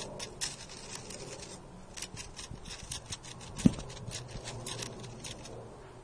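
A stick scraping through dry leaves and over paving stones: a quick, irregular run of short dry crackles, with one louder knock about halfway through.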